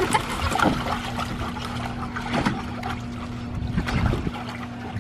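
Garden hose running water into a plastic kiddie pool, a steady trickling and pouring, with Labrador puppies splashing as they wade and snap at the stream several times.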